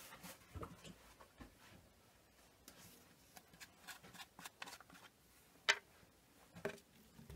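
Faint, scattered clicks and light rustling of small objects being handled by hand, with a sharper click a little before six seconds in and another about a second later.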